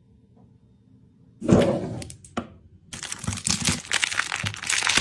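A crinkly plastic wrapper tearing and crackling as it is pulled off a large strawberry lollipop. There is a sudden loud tear about a second and a half in, then dense crinkling from about three seconds on.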